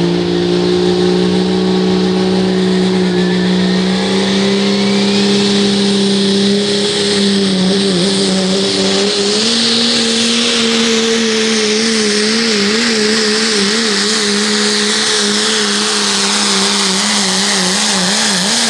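Turbocharged Pro Stock diesel Dodge pickup pulling a sled under full load. The engine runs at a steady high note that steps up about halfway through, then wavers quickly up and down over a loud rushing hiss.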